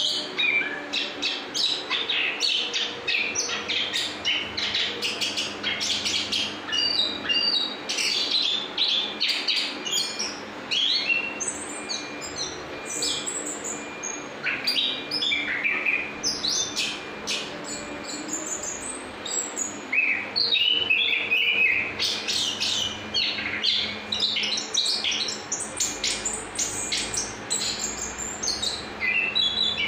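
Orange-headed thrush (anis kembang) in continuous song, a rapid, nearly unbroken stream of high chirps, whistles and short trills.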